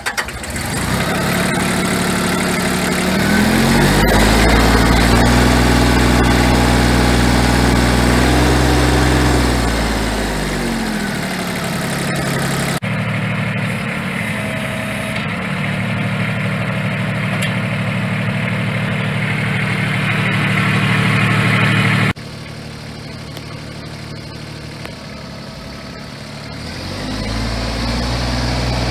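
Mahindra 4WD compact tractor's diesel engine idling. It is revved up a few seconds in, held high for several seconds and let back down to idle. Near the end the revs rise again as the tractor pulls away.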